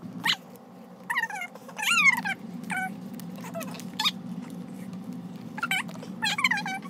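Elmer's glow-in-the-dark glue bottle being squeezed out, air and glue forced through its nozzle in several short, squeaky squeals that bend up and down in pitch, like a pig's squeal or a fart. The bottle is being squeezed nearly empty.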